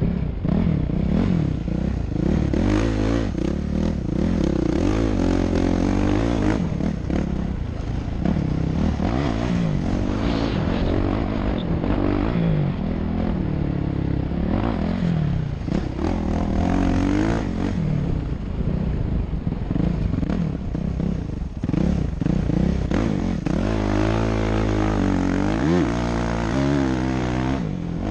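Motocross bike engine heard from the rider's helmet camera, revving up and down over and over as the throttle is opened and closed around the dirt track, with a long climbing rev near the end.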